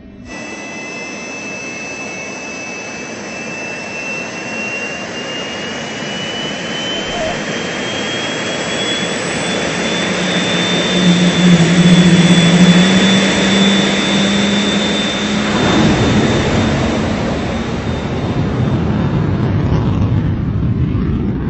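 Fighter jet engines spooling up with a rising whine over a building roar, swelling to a loud afterburner takeoff roar about halfway through, then easing off as the jet climbs away.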